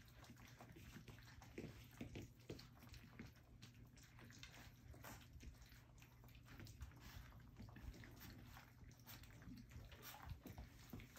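Faint wet lapping, chewing and small irregular clicks from a litter of almost four-week-old puppies eating their first meal from a shallow stainless steel saucer dish, a sign of the start of weaning.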